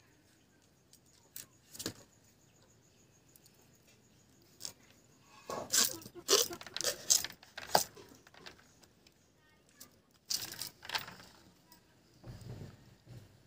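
A small knife cutting through a green papaya and scraping out its seeds over a woven bamboo tray: scattered sharp scrapes and knocks, busiest from about six to eight seconds in and again around ten seconds.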